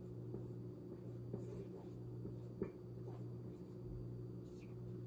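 Faint scratching strokes of writing, several short strokes scattered through, with a small tap about halfway, over a steady low hum.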